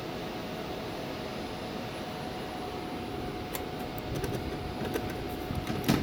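Air handler running: a steady noise of blower and moving air with a thin steady tone in it. A few light clicks and knocks come in the second half, the loudest just before the end.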